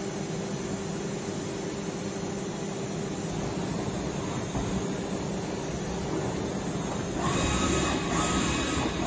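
Deckel DMU 70 evo linear CNC machining center running with a steady mechanical hum. About seven seconds in it grows a little louder and a higher whine joins.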